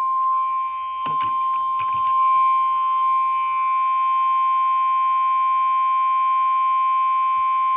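NOAA Weather Radio warning alarm tone: a single steady, unbroken 1050 Hz beep played through the radio's speaker, the alert that signals a warning message is about to be broadcast.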